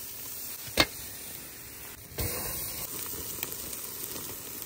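Steak sizzling on the grate of a charcoal grill, a steady hiss with one sharp pop from the coals about a second in. The sizzle gets a little louder about two seconds in.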